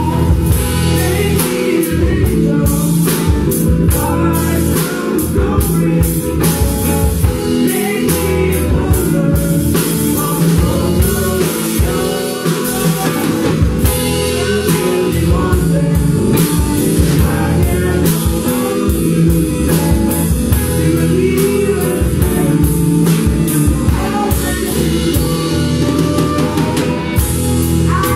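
Live blues-rock band playing: drum kit, electric guitar and bass, with a woman singing.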